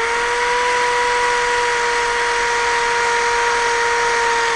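Electric power sander running at a steady speed, a constant motor whine over the hiss of abrasive on plywood, levelling the box's sides flat.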